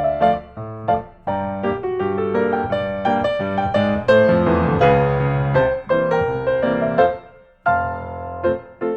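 Instrumental background music: a keyboard melody of quick notes that breaks off briefly about seven seconds in, then resumes.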